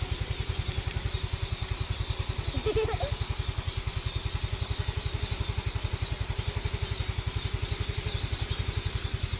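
A small engine idling with a steady low thudding of about ten beats a second, with faint bird chirps above it and a brief voice about three seconds in.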